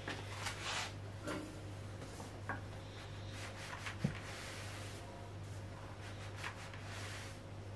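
Faint rustling and light taps from a rice-filled fabric heat pad being handled, over a steady low hum, with a small knock about four seconds in.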